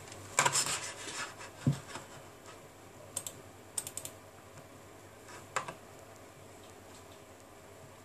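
Scattered light clicks and taps of fingers handling a plastic smartphone. There is a cluster in the first second, then a few single clicks spaced out over the following seconds.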